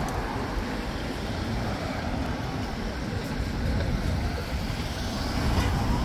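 Steady city road traffic noise, the rumble of passing cars and buses. Near the end, an emergency vehicle's siren begins to rise in pitch.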